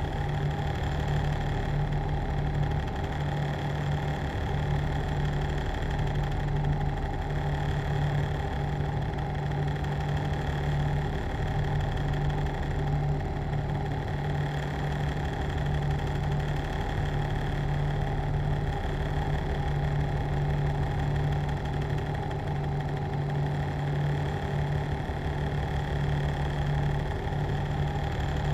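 A machine running steadily: an even low hum with steady higher whining tones over it, unchanging throughout.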